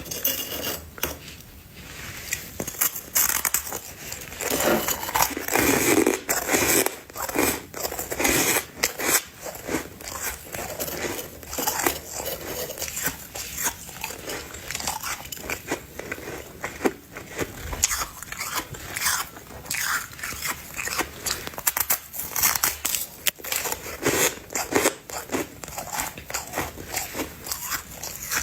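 A person biting and chewing a chunk of ice close to the microphone: a rapid, irregular run of sharp crunches and cracks, with louder bites about four to six seconds in and again around twenty seconds in.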